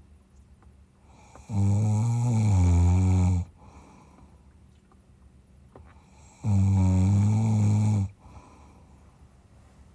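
A man snoring in his sleep: two long, low snores about two seconds each, some five seconds apart. This is his snoring after soft-palate surgery (palatoplasty) for snoring and sleep apnea.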